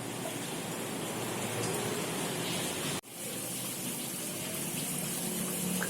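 Steady rush of running water, broken off sharply about three seconds in and then resuming.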